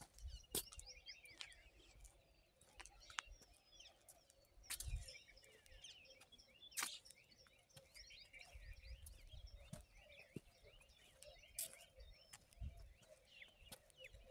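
Faint chorus of small birds chirping throughout, with a few sharp clicks and low bumps from the phone being handled.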